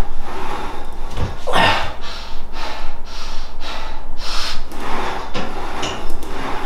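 A man straining through a set of cable rope pushdowns with his T-shirt clenched in his teeth, breathing hard and snorting through his nose with each rep.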